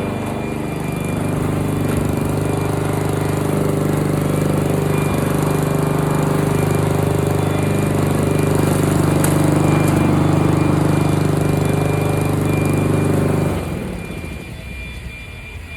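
Honda HRR walk-behind lawn mower's engine running steadily while shredding leaves, then cutting out near the end, leaving a fainter low rumble.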